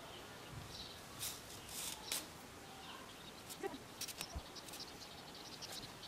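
Faint rustling and scratching of stiff paper yarn being drawn through crocheted stitches with a metal tapestry needle, in a few short scrapes about a second in and again about four seconds in.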